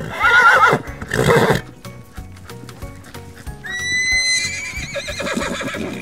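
A horse neighs twice. The first is a loud, wavering whinny at the start, followed at once by a rougher, noisier burst. The second is a higher, longer whinny that begins a little past the middle and wavers on to the end. Light background music plays underneath.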